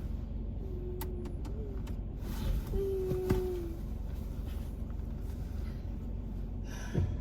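Car idling, heard from inside the cabin: a steady low rumble, with two brief held tones in the first half and a few light clicks.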